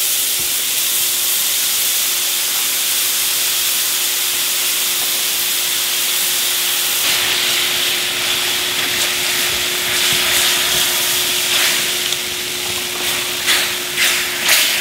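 Meat and rendered beef fat sizzling loudly in a very hot stainless steel frying pan, with a steady low hum underneath. Near the end, a spatula scrapes the bottom of the pan in a few short strokes.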